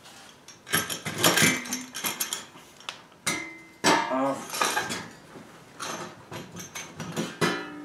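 Steel auger sections of a Honda HSS1332 snowblower clanking and scraping against each other and the auger shaft as they are worked off the gearbox, several separate metallic clatters, some briefly ringing.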